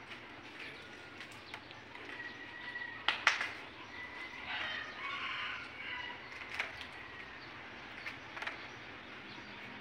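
Birds chirping in short calls, with a busy patch of chatter about halfway through. A few sharp knocks of a person climbing wooden scaffold planks, the loudest about three seconds in.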